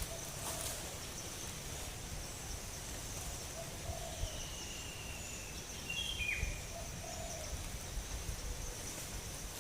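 Forest ambience: a steady, high insect drone with a bird calling over it, one drawn-out thin whistle through the middle and then a short, sharply falling note about six seconds in. Two faint low notes sound near the four- and seven-second marks, over a low rumble.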